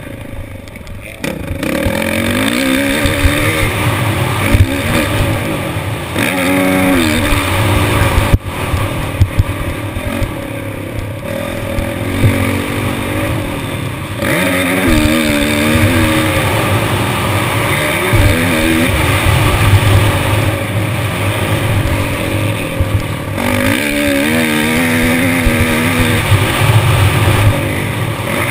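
Motocross bike engine heard from the rider's helmet camera while riding the track, its pitch rising and falling again and again as the throttle is opened and closed.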